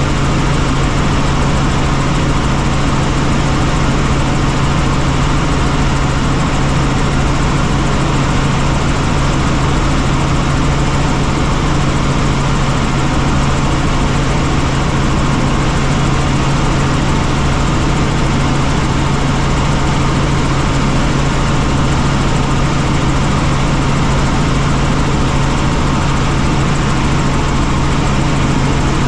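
Helicopter running: a loud, steady drone of turbine and rotor noise with a constant low hum underneath.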